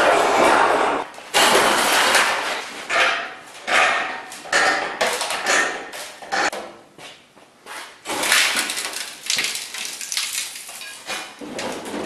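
Thin sheet metal rattling and scraping as it is handled and slid across a homemade heavy-steel sheet metal brake, with knocks of metal on steel, in uneven bursts.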